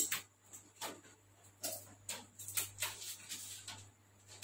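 Irregular rustling and clicking of hands handling foam RC model airplane parts on a table, over a faint steady low hum.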